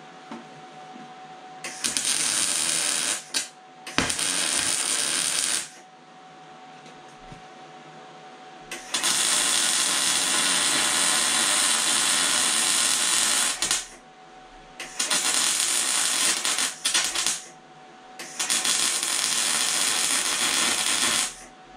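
MIG welder's arc burning on steel in five bursts of about one to five seconds each, the longest near the middle, as steel brackets are welded on.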